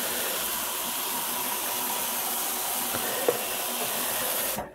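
Steady hiss that cuts off suddenly near the end, with one short knock about three seconds in.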